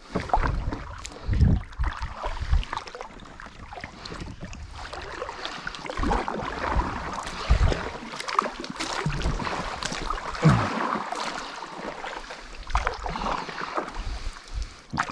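Water sloshing and splashing around a kayak, with wind buffeting the microphone and scattered knocks and low thumps.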